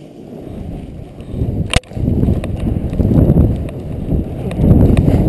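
Snowboard sliding through soft snow: a low rushing rumble that swells and fades with the turns, mixed with wind buffeting the camera microphone. A single sharp knock comes about two seconds in.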